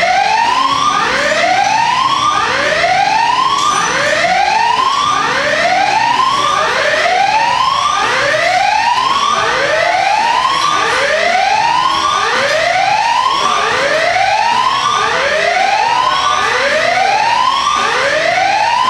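Siren-like tone sweeping upward and levelling off, repeating about once a second with each sweep overlapping the next, loud and unbroken.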